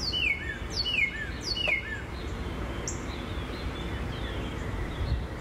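Birds chirping over a steady low outdoor background noise. A short call of quick falling notes repeats about once a second for the first three seconds, then grows fainter.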